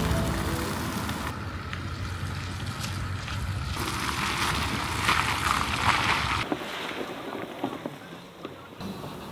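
Outdoor wind noise, a rushing hiss that changes abruptly several times as different shots are cut together, with the tail of music ending at the very start.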